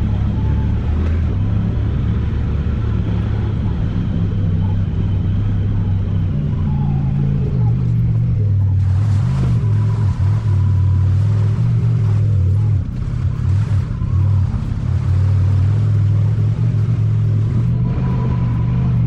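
Side-by-side UTV engine running under way, its pitch rising and falling as the throttle changes. A hissing rush comes in about nine seconds in and drops away near the end.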